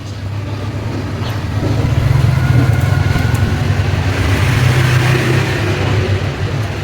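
A motor running steadily with a low hum, joined by a rising hiss after about two seconds.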